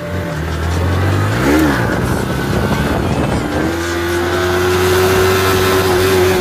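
Small motorcycle engine running while riding at speed, with wind noise. It revs up and back down quickly about a second and a half in, then holds a steady, higher note from about halfway.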